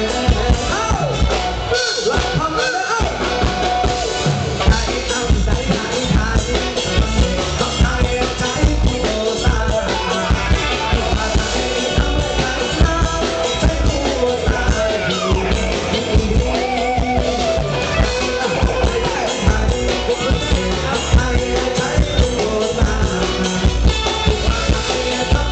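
Live band playing through a stage PA: a male singer over electric guitars and a drum kit, with a steady dance beat.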